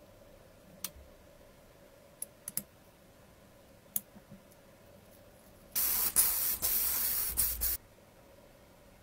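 A few light clicks of tweezers on small metal model parts, then about two seconds of loud spraying hiss in several quick bursts.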